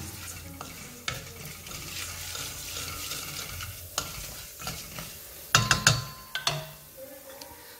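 Mustard seeds and lentils sizzling in hot coconut oil in a stainless steel kadai, stirred with a wooden spatula that scrapes against the pan. About five and a half seconds in there is a brief, louder clatter of knocks.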